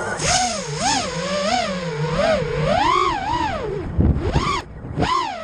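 FPV racing quadcopter's brushless motors (Emax 2205 2300kv) and propellers whining, the pitch swooping up and down again and again with quick throttle changes. About four seconds in the whine drops away briefly under a short low rumble, then climbs again.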